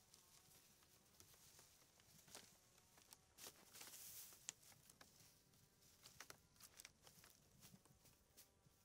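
Near silence with faint scattered clicks and ticks, and a brief soft rustle about four seconds in.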